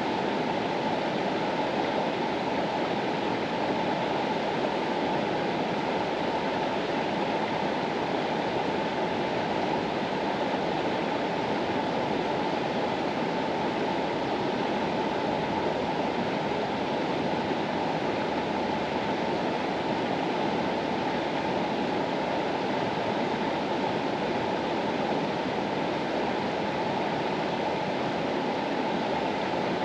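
The Mastallone, an Alpine mountain river, rushing steadily: an even, unbroken rush of flowing water, fullest in its lower and middle range.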